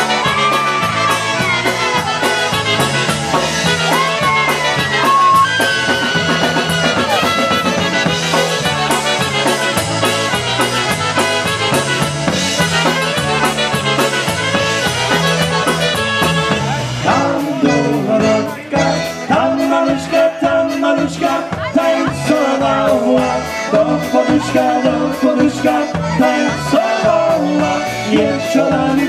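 Live polka band playing an instrumental passage, with trumpet, saxophone, drums, bass guitar and keyboard, over a steady beat. About seventeen seconds in, the band moves into a new section.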